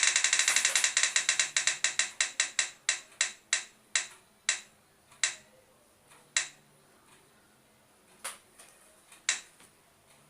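Spinning roulette wheel ticking as it turns. The clicks come fast at first, then slow down and spread out, the last few coming seconds apart as the wheel comes to a stop.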